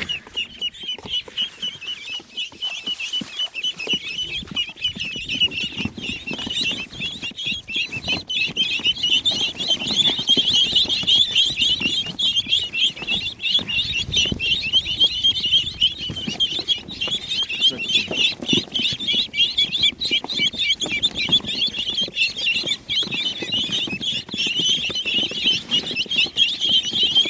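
A brood of mallard ducklings peeping continuously, many rapid high chirps overlapping, growing louder after the first several seconds.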